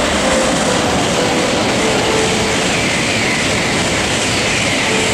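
JR East E4 series Max double-decker Shinkansen train running past close by: a loud, steady rush of wheel and running noise, with a whine high up that falls in pitch again and again.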